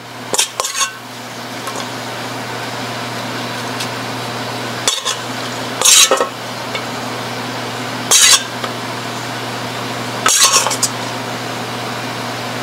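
A handful of short clinks and taps of utensils against a plate and a metal salad bowl while a salad is plated, spaced a second or more apart over a steady kitchen hum.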